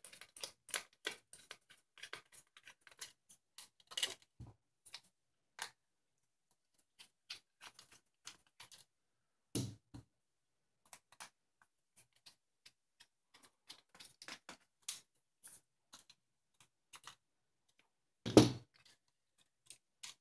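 Micro screwdriver backing small screws out of a TI-82 calculator's aluminum shielding: a run of small clicks and ticks from the screwdriver tip and the screws, thinning out after about six seconds. A louder knock comes near the end.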